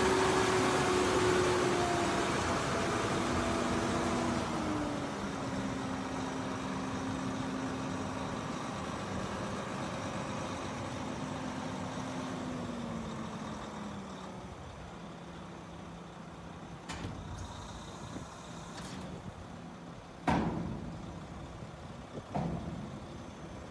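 Mack GU713 tri-axle dump truck's diesel engine and hydraulic hoist running as the dump body tilts up, the steady tone stepping down in pitch and fading over the first fourteen seconds. Near the end come two sharp knocks, the louder one about twenty seconds in.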